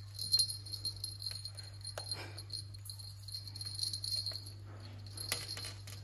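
Small metal bell on a hanging parrot toy jingling as a cockatoo chews and tugs at the toy, with a few sharp clicks along the way.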